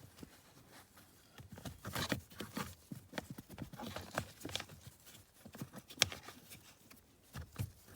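Irregular clicks, taps and light knocks of a wiring harness and plastic trim being handled and tucked into place by hand, with one sharper click about six seconds in.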